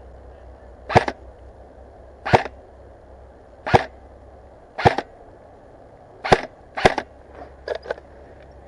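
Airsoft electric rifle fired in single shots: six sharp cracks spaced about a second to a second and a half apart, followed by a few fainter clicks near the end.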